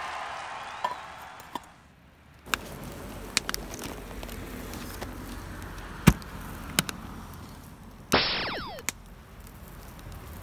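Wood fire burning in a small folding fire grill, crackling with scattered sharp pops. About eight seconds in, a loud burst with several tones falling in pitch lasts under a second.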